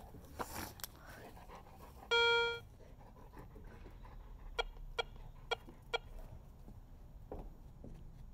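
Metal detector sounding a held, buzzy mid-pitched beep of about half a second, two seconds in, signalling metal under the coil, then four short pips about half a second apart. Clothing and handling rustle near the start.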